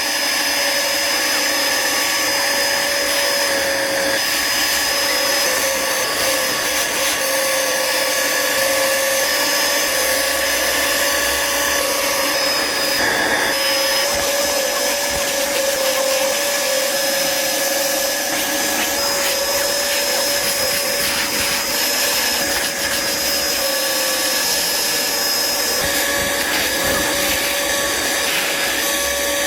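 Vacuum motor running steadily with a constant whine, as used to clean a fabric couch.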